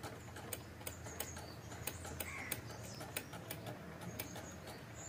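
Faint, irregular light clicks and taps of tools and small brake parts being handled, over a low steady hum, with a few faint bird calls in the background.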